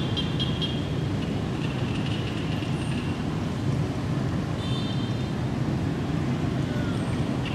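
Steady low outdoor rumble, with faint high chirps now and then, a short run of them about five seconds in.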